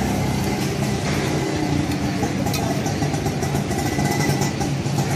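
Metal spatula clinking and scraping on a flat steel griddle as egg-coated burger patties are turned, over a steady low engine hum.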